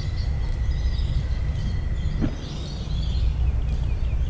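Small birds chirping over a steady low rumble, with a thin steady whistle-like tone that stops about halfway through.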